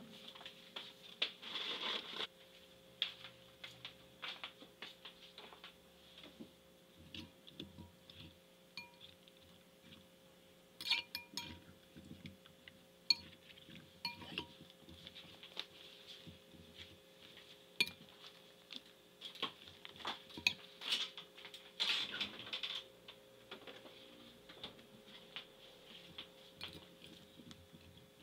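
Metal fork clinking and scraping irregularly against a glass bowl while stirring sliced potatoes in evaporated milk, with a faint steady hum underneath.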